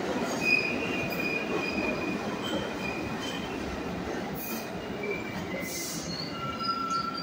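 New York City subway train rolling into a station and slowing, its wheels rumbling on the rails, with short high-pitched metallic squeals coming and going throughout and a longer squeal near the end.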